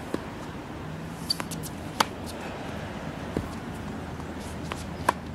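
Tennis ball struck by a racket on backhand groundstrokes: sharp pops, the loudest about two seconds in and again near the end, with fainter knocks between them from ball bounces and hits on the far side of the court.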